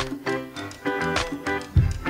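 Upbeat background music with a steady beat and short pitched notes.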